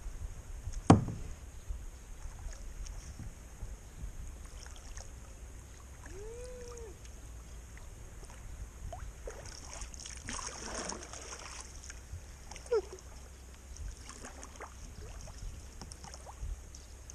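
Kayak paddling sounds on calm water: a sharp knock about a second in, a splashy rush of water around ten seconds in, and a low steady rumble underneath. A short call that rises and falls near six and a half seconds, and another brief one near thirteen seconds.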